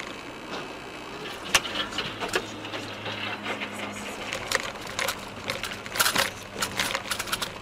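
Car driving on a rough road with steady engine and road noise. About a second and a half in comes a sharp knock, followed by a run of clicks, clatter and crunching as debris strewn on the road hits the car and is run over.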